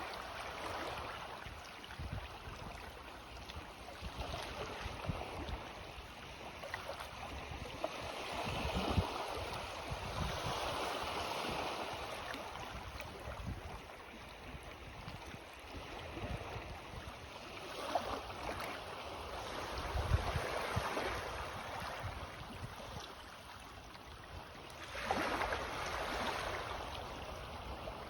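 Small sea waves washing in on the shore on a rising tide, each swell of surf building and falling back every several seconds.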